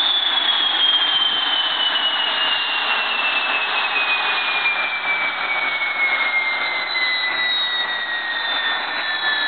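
Freshly overhauled Lycoming T53-L-13B gas turbine running: a steady, loud jet rush with a high turbine whine that falls slowly and evenly in pitch.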